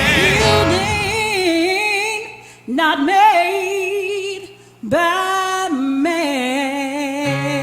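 A single voice singing gospel unaccompanied, holding three long notes with wide vibrato, each fading away before the next begins. Lower voices come in underneath near the end.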